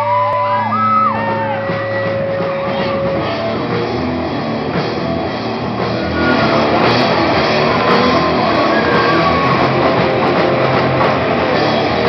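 Live rock band of distorted electric guitars, bass guitar and drums playing an instrumental passage. A guitar line bends notes up and down at the start, then the full band plays a dense, steady section that gets a little louder about six seconds in.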